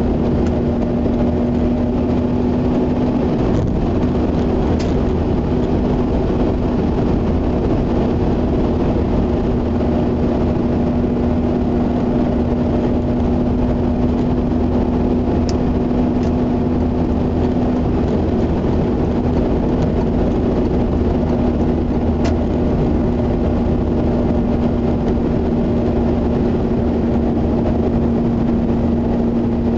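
Mazda RX-8's rotary engine and tyre noise heard from inside the cabin at a steady expressway cruise: an even hum with a constant drone and a few faint ticks.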